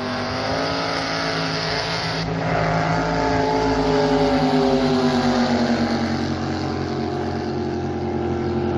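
Two racing jet boats running flat out side by side, their engines' drone loudest about four seconds in, then slowly falling in pitch as they pull away.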